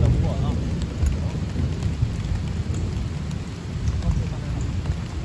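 Heavy rain drumming steadily on a plastic tarp shelter overhead, a dense low rumble with sharp drop ticks scattered through it, over the hiss of rain falling on the river.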